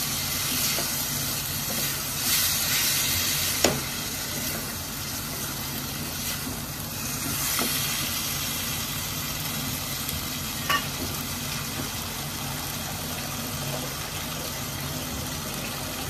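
Masala with paneer cubes sizzling steadily in a stainless steel pan, stirred with a wooden spatula at first and then left to fry. Two sharp knocks stand out, about four seconds in and again near eleven seconds.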